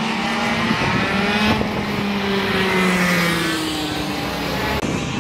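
Racing kart engines running on the circuit, their note sliding down in pitch as the karts slow for the corners. The sound cuts off abruptly near the end.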